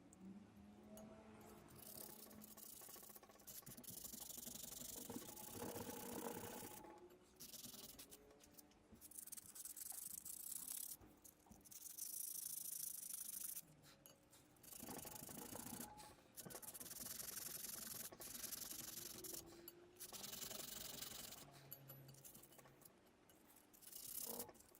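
Hand rubbing and scraping at the rusty metal parts of an antique meat grinder, in several stretches of a few seconds each with short pauses between.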